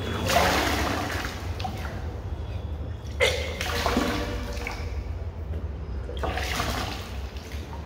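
A person retching and bringing up drunk water during Kunjal Kriya, the yogic cleansing practice, induced with fingers in the throat. Three gushes of water pour out and splash down, about three seconds apart.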